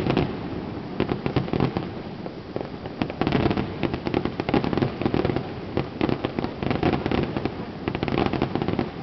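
Fireworks display: aerial shells bursting and crackling, a dense run of sharp pops and cracks in quick succession that thickens in the second half.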